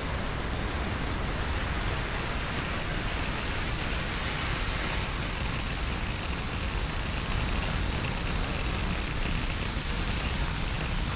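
Falcon 9 first stage's nine Merlin 1D engines firing during ascent: a steady rocket-engine noise, strongest in the deep low end.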